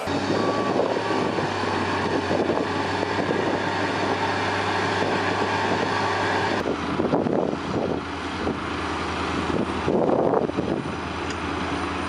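Heavy vehicle engine running with a low steady drone, growing louder in swells about two-thirds of the way in, with a change of sound about halfway through where the footage cuts.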